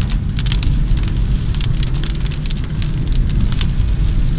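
Heavy rain drumming on a moving car, a dense patter of separate drop hits over a steady low rumble of engine and road noise.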